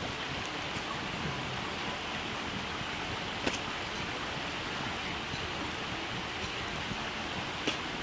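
Steady noise of running water, with two faint clicks, one about three and a half seconds in and one near the end.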